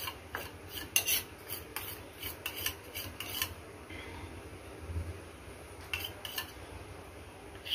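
Light metal clinks and scrapes of kitchen utensils being handled: a quick cluster of short clicks in the first few seconds and two more about six seconds in, over a faint steady low hum.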